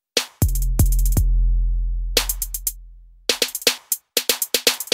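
Background music: an electronic beat of drum-machine hits over a deep, sustained bass, cutting out briefly twice.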